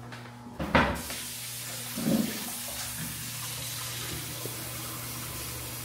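Kitchen faucet running into the sink, a steady rush of water that starts about a second in, just after a sharp knock.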